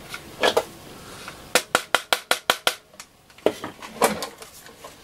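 Tools and parts handled on a workbench: a quick run of about seven sharp taps a little over a second in, then a couple of single knocks.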